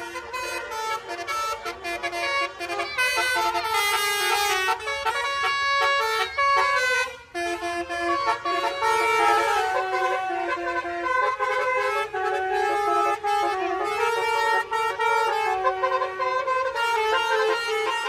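Telolet (basuri) multi-tone air horns playing a tune in steady stepped notes, with a short break about seven seconds in.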